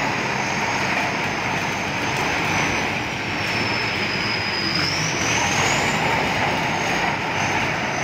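Tracked combine harvester's diesel engine running steadily under load as the machine drives, with a thin high whine that slides down and then back up about halfway through.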